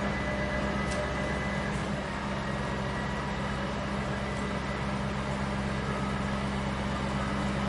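Building-site machinery engine running steadily: a constant low drone over a wash of site noise, with no change in pitch or level.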